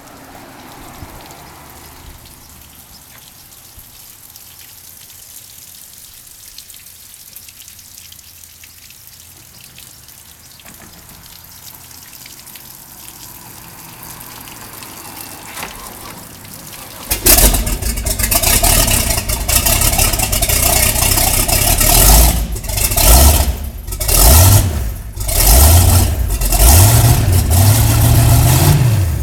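1995 Crownline 266's MerCruiser V8 sterndrive engine, run on its trailer with a garden hose supplying cooling water. After a long quiet stretch it starts suddenly a little past halfway through and is revved up and down several times, the pitch rising and falling with each rev.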